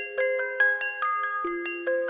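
Music box playing a gentle melody, its notes plucked a few times a second and ringing on into one another.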